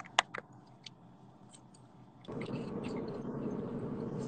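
A few light clicks, then from about two seconds in a steady hiss with a faint low hum: the background noise of a joined live-stream guest sitting in a car, heard through the phone call.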